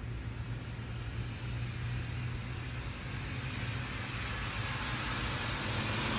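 A car driving past on the wet road, its tyres hissing on the rain-soaked pavement and growing steadily louder toward the end, over a low steady rumble of traffic.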